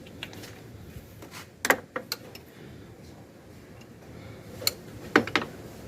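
Hand tools clinking on metal while an 8 mm nut is taken off a starter motor's wiring: a quick group of three sharp clinks about a second and a half in, and another group near the end.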